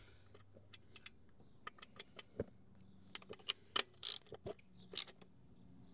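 Faint, irregular small metallic clicks and clinks from a 10 mm socket on an extension being turned by hand to screw a new float seat into a Honda VFR400 carburettor.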